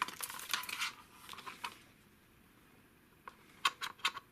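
Hands handling a Gear VR headset and phone: rustling and light clicks for the first second and a half, a short lull, then a quick run of sharp plastic clicks near the end as parts are fitted.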